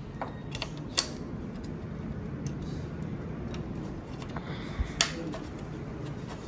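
Handling sounds while the bicycle frame is filmed up close: two sharp clicks, about a second in and about five seconds in, and a few fainter ticks, over a steady low background hum.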